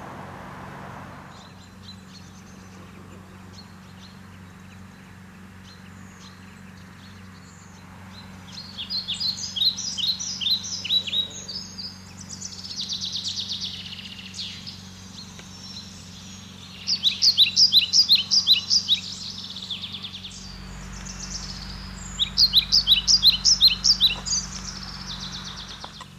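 A songbird singing: several songs of a couple of seconds each, strings of quick high notes, the first about eight seconds in. A faint steady low hum runs under them.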